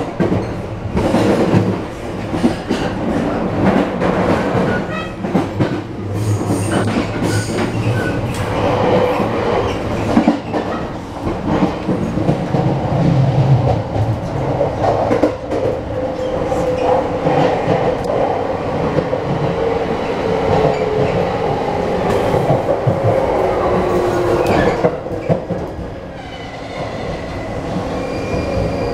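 Inside a JR 651 series limited express car by the door, the train running: steady rumble with wheels clattering over rail joints and points, and a motor tone that drifts in pitch. It gets a little quieter near the end.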